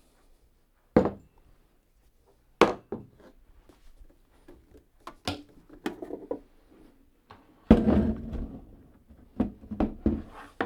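Hard objects being handled and set down on a work surface: several sharp single knocks spread over the first six seconds, then a heavier thud with a short rumbling scrape about eight seconds in.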